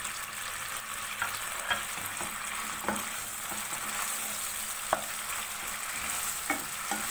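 Fried chicken pieces sizzling in a pan of hot yogurt-and-chilli masala as they are stirred in, with a spoon knocking and scraping against the pan several times.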